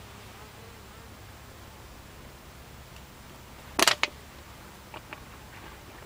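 Buckfast honeybees at the hive entrance, a faint steady hum, with a brief loud burst close to the microphone about two-thirds of the way through and a couple of faint ticks after it.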